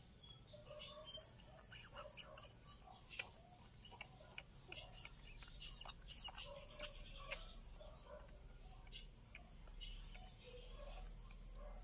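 Faint wet clicks and smacks of a 12-day-old puppy suckling milk from a feeding bottle. A small bird chirps a few times in quick runs of three or four high notes.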